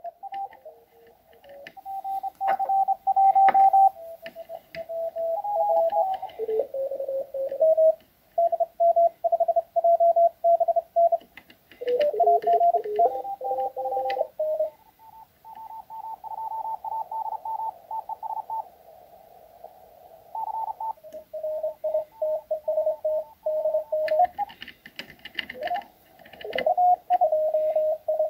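Morse code (CW) signals received on a home-built Joker SDR transceiver: keyed single-tone beeps from several telegraphy stations, each at a slightly different pitch, the pitch shifting as the receiver moves from one station to the next. A short patch of crackle comes in near the end.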